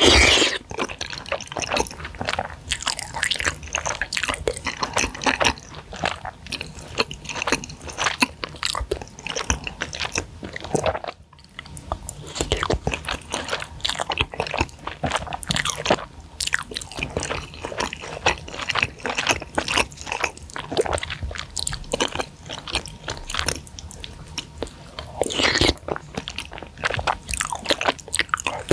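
Close-miked eating of spicy flat rice noodles (seblak kwetiau): a loud slurp of noodles right at the start, then steady wet chewing and mouth smacks. Another loud slurp comes about 25 seconds in.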